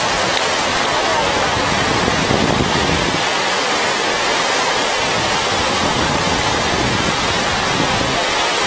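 Steady rushing noise of breaking surf on a beach, an even hiss with no separate splashes or voices standing out.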